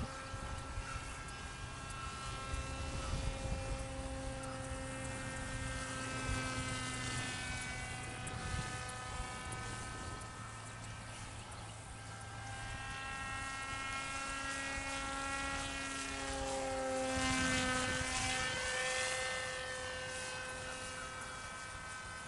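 Radio-controlled VersaWing model plane's motor and propeller whining overhead, a stack of steady tones that shift with the throttle. It grows louder and drops in pitch as the plane passes closest, about three quarters of the way through.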